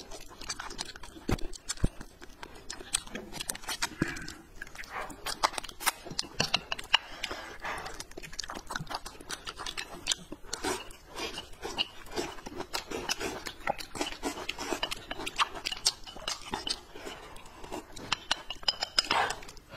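Close-miked eating sounds: rapid, irregular wet clicks and smacks of chewing and slurping food eaten from a bowl with chopsticks.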